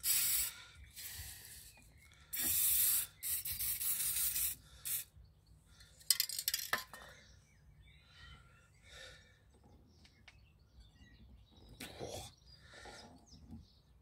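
Aerosol spray can hissing in several bursts onto a seized rear brake caliper over the first five seconds, the longest and loudest a little under a second long. A sharp click a little before seven seconds in, then only faint scraping.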